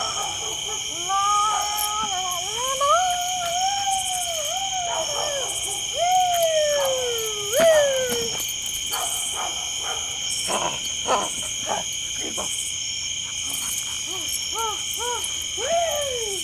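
A steady chorus of night insects such as crickets trills throughout. Over it, a dog whines in long tones that rise and fall during the first half, with a few short whines near the end and some soft clicks in between.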